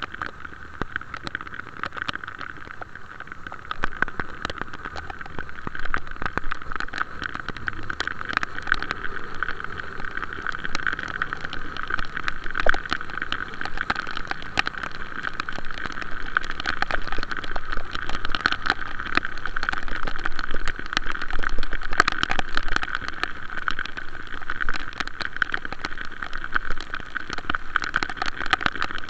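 Heavy rain: a steady hiss with a dense crackle of drops striking close by, over a low rumble.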